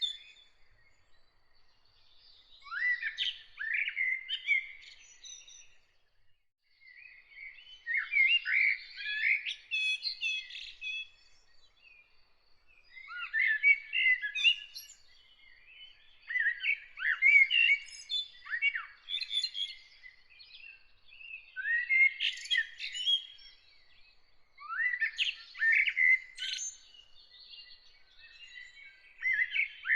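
A songbird singing, its song coming in bursts of quick varied notes, each burst about two to three seconds long, about seven times, with short pauses between.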